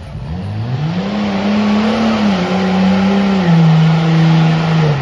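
Diesel Dodge Ram pickup doing a burnout, with the engine revving hard and the rear tyres spinning on the pavement. The revs dip at the start, climb back over the first couple of seconds and hold high, then step down in pitch partway through.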